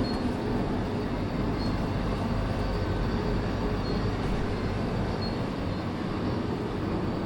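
Steady low rumble and hiss of shop ambience, with a few faint short high tones now and then.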